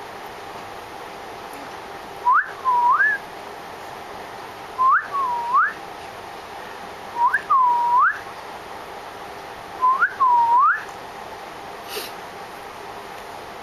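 A person whistling a two-part call four times, about every two and a half seconds: a short rising whistle, then a swooping whistle that dips and rises again.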